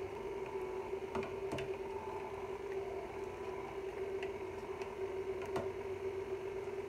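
KitchenAid stand mixer motor running steadily with a constant hum, turning the fruit and vegetable strainer attachment's auger. A few light clicks and knocks come from the plastic plunger being handled at the hopper.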